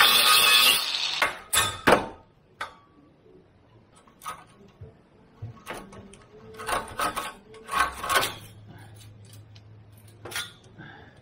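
An angle grinder with a cutting disc cutting through a steel exhaust clamp stops about a second in. Then come sharp metal clanks and clatter as the cut clamp is worked off the exhaust pipe, two strong knocks at first and a flurry of them later.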